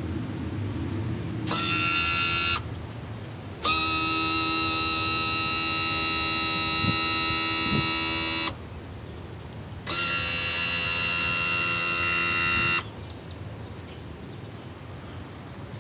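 Power trim/tilt motor of a Mercury 50 hp outboard whining at a steady pitch in three runs: a short one of about a second, a long one of about five seconds, then one of about three, each starting and stopping as the cowl-mounted trim button is pressed and released.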